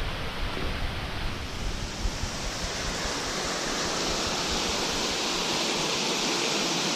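Waterfall rushing: a steady, even hiss of falling water that grows fuller and brighter about halfway through. Low wind rumble on the microphone through the first few seconds.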